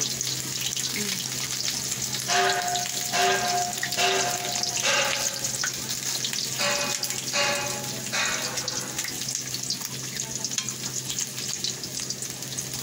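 Chunks of boiled pork frying in their own rendered fat in an aluminium wok on a gas stove, with a steady sizzle and a metal spoon stirring through the meat. Short pitched notes repeat in the background between about two and eight seconds in.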